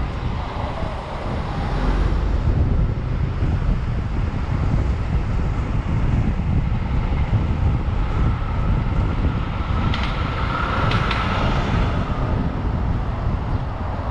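Street traffic noise: a steady low rumble of passing vehicles with wind buffeting the microphone, and a few sharp knocks about ten seconds in.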